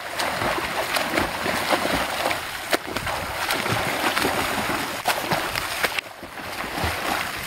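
A swimmer's front-crawl strokes splashing through lake water, arms slapping the surface in quick repeated splashes over the steady hiss of rain falling on the water. The splashing drops away briefly about six seconds in.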